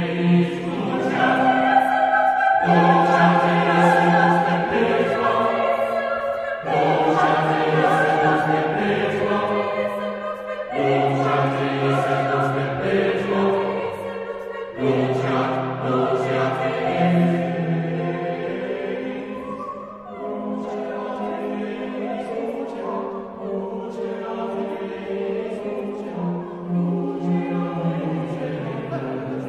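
Background choral music: voices singing slow, sustained chords that change every few seconds, a little quieter in the last third.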